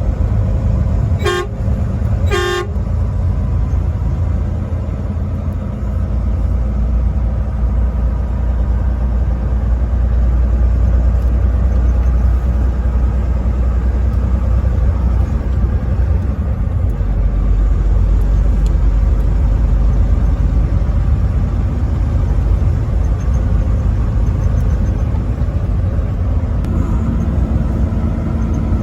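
Truck horn sounding two short blasts about a second apart, followed by the steady low rumble of the truck's engine and road noise while driving. A low steady hum joins near the end.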